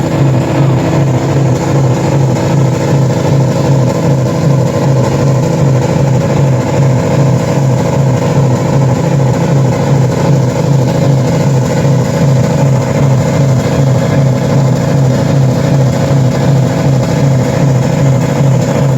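Scrap car engines held at steady high revs, being run hard in an attempt to blow them up; a loud, unchanging drone with a fast pulsing beat.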